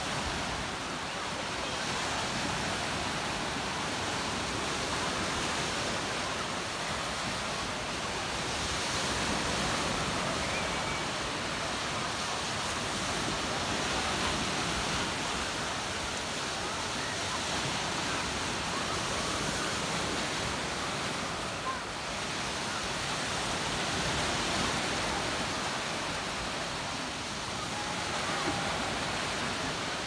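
Black Sea surf: small waves breaking and washing up a sandy beach, a steady rushing wash that gently swells and eases every few seconds.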